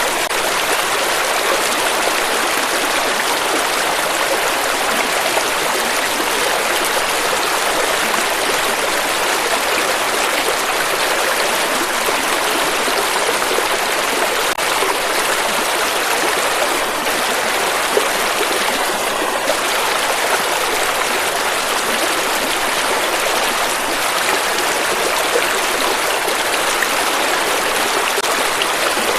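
River water flowing steadily, an even rushing without a break.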